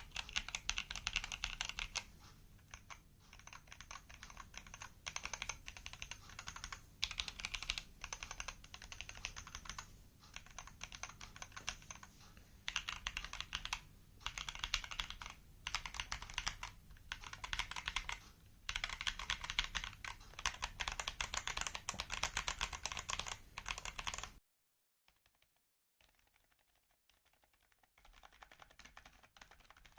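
Fast typing on a modded mechanical keyboard with tactile switches, keys clattering in runs of a second or two with brief pauses. The sound cuts off suddenly a little after two-thirds of the way in, and fainter typing returns near the end.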